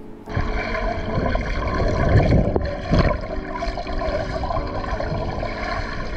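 Water rushing and splashing from the arm strokes of a surfer paddling a surfboard, heard from under the water.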